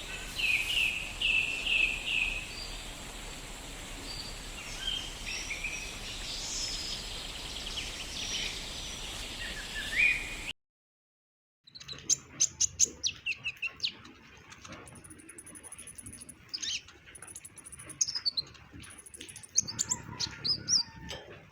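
Kolibri ninja (brown-throated sunbird) singing lively, varied bursts of short, high chirps and twittering notes. About ten seconds in the sound cuts out for about a second, then resumes cleaner with a quick run of sharp chirps.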